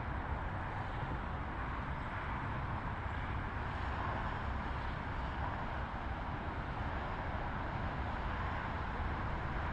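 Steady outdoor background noise: a low rumble with a hiss over it, like traffic, with no sudden sounds.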